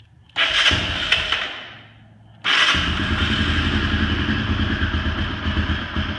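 Honda TRX300FW Fourtrax's single-cylinder four-stroke engine started on the electric starter for the first time after a camshaft swap. A first loud burst fades away within about two seconds, then it catches at about two and a half seconds and runs at idle with a rapid, even beat.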